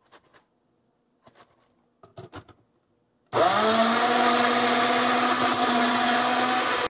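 A few light knocks and clicks as the blender bottle is handled and set on the base, then about three seconds in an Oster personal blender's motor starts, rises quickly to speed and runs steadily, blending a milk-and-yogurt smoothie, until it cuts off near the end.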